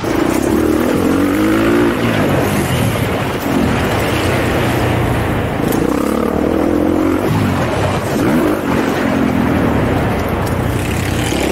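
Motocross dirt bike engine being ridden hard, its pitch rising and falling again and again with the throttle, heard close up from a helmet-mounted camera.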